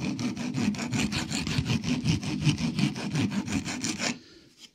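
Wood rasp shaping the edge of a plywood saw handle in fast, rhythmic scraping strokes. The strokes stop about four seconds in.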